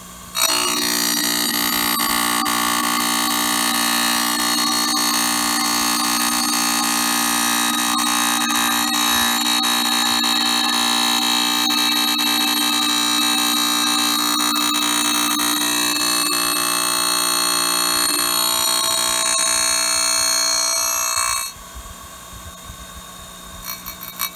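Grinding wheel grinding the splines of a hardened steel tractor shaft while the shaft is fed slowly under it: a loud, steady whine with several tones. About 21 seconds in, the wheel runs off the end of the cut and the grinding stops suddenly, leaving a quieter steady hum.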